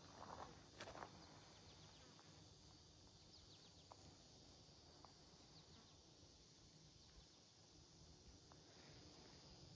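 Near silence: faint outdoor ambience, with a few footsteps in the first second and a few faint high chirps of small birds or insects.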